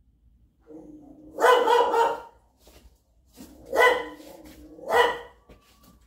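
A dog barking a few times, about a second apart.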